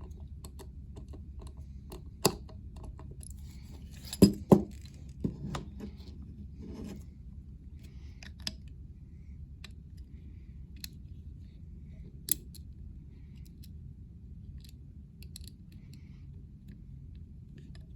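Small metal tool parts being handled: scattered clicks and taps as the bits and bit extension of a Leatherman multitool are worked together. The loudest clicks come about 2 seconds in and twice between 4 and 5 seconds in, and they thin out and grow fainter after about 7 seconds.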